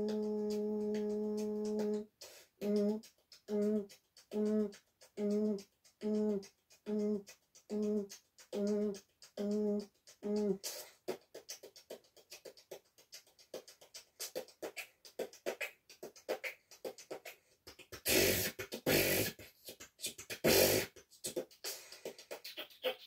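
Solo beatboxing, one voice. It opens with a held hum, then about ten short hummed notes just under a second apart. Around the middle it turns to a fast run of clicks and percussive mouth sounds, with two louder hissing blasts near the end.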